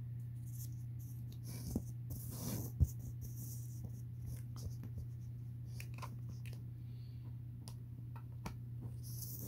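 Handling noise as a USB cable is connected between a Raspberry Pi Zero W hotspot and a USB battery pack: light scraping and small clicks, with one sharper knock about three seconds in, over a steady low hum.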